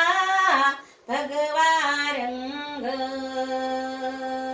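A woman singing a Marathi bhajan solo, with no instruments: a short sung phrase, a brief breath about a second in, then a new phrase ending on a long held note.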